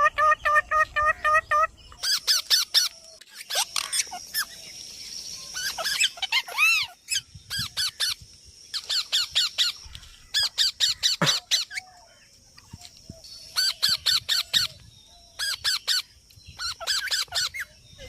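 Parrot squawking and chattering in rapid bursts of short, sharp calls, several calls a second, with brief pauses between bursts; it opens with a single held call.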